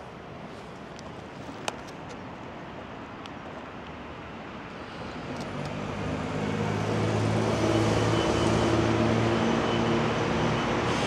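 City street traffic: a steady low hum with one sharp click about two seconds in, then cars drive through the intersection close by, their engines and tyres growing louder from about halfway and staying loud.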